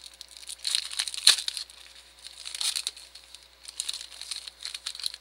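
Crinkly plastic wrapper of a Prestige basketball card pack being torn open and peeled off the cards, in irregular crackling bursts, the sharpest about a second in.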